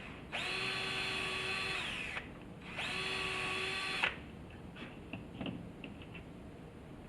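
Power drill/driver running screws in twice, a run of about two seconds and a shorter one, each winding down as the trigger is let go, followed by a few light clicks. The screws fasten a bracket to a wooden pew support and are driven only until snug.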